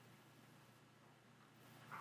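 Near silence: faint room tone with a steady low hum, and a brief faint sound right at the end.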